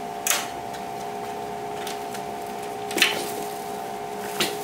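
A stepladder being handled and set down, knocking three times: shortly after the start, about three seconds in, and near the end. A steady two-tone hum runs underneath.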